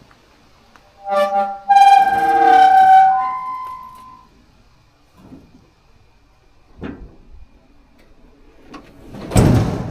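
Old Peterbilt's tilt hood being pushed shut by hand, its hinges giving loud, high-pitched squeals that step up in pitch over about three seconds. About nine and a half seconds in there is a heavy thud.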